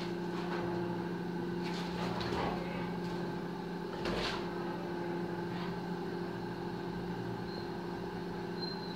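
A steady low hum runs throughout, with a few faint scuffs and taps of a Labrador's feet moving on a tiled floor; the clearest tap comes about four seconds in.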